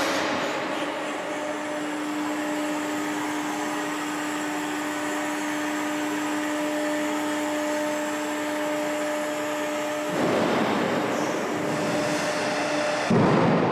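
Aircraft landing gear on a test rig extending under hydraulic power: a steady mechanical whir with a low held hum. It turns louder and rougher about ten seconds in and breaks off near the end.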